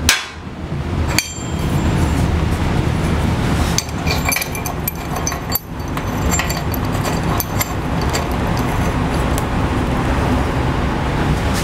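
Irregular small metal clinks and ticks of bolts and tools being handled at a table saw's front rail, over a steady loud noise.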